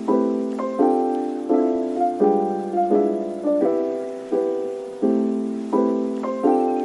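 Background piano music: gentle chords struck about every 0.7 seconds, each one fading away before the next.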